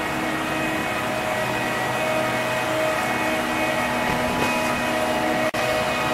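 Engine of a canal work boat running steadily as it motors past, a constant hum with several fixed tones. The sound breaks off for an instant about five and a half seconds in.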